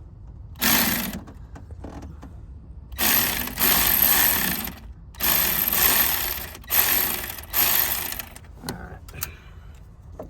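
Hand socket ratchet clicking rapidly in several bursts as an alternator mounting bolt is undone, its nut held by a spanner wedged behind it.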